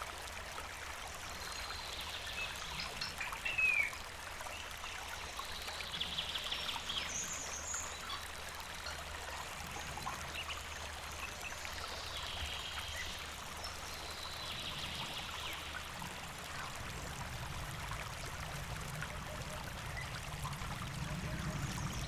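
River water flowing steadily. Short bird trills recur every few seconds, with a brief whistle about three and a half seconds in.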